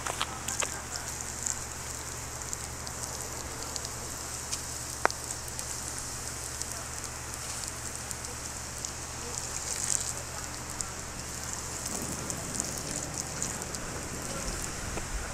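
Titanium powder in a steel tray sizzling and crackling as it steams after being doused with FEM-12 SC extinguishing agent: a steady hiss with a few small pops.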